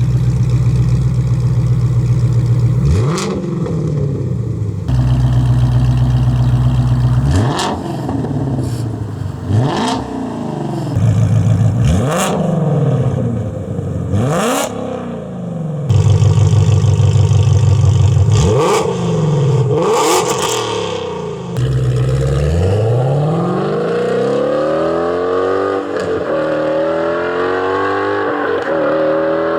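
Ford Mustang Shelby GT350's 5.2-litre flat-plane-crank V8 breathing through Stainless Works aftermarket headers and exhaust, idling and revved in repeated sharp blips. Near the end it pulls away under hard acceleration, the pitch climbing, dropping once at a gear change, then climbing again.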